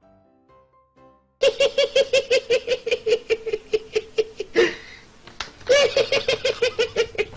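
Faint music, then about a second and a half in a man's high-pitched laugh breaks in: fast repeated 'ha-ha-ha' pulses, about five a second, broken by one sharp gasping breath before the laughing starts again.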